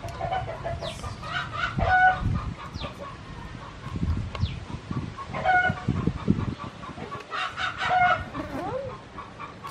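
Chickens clucking and crowing, several separate calls spread through, with dull low knocks in the middle.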